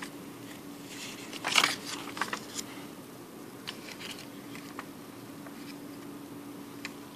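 Paper banknotes being handled. A short cluster of crisp rustles and crinkles comes about one and a half seconds in, followed by a few faint ticks and rustles, over a steady low hum.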